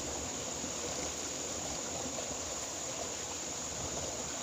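Steady rush of flowing water, an even hiss with no rhythm or breaks.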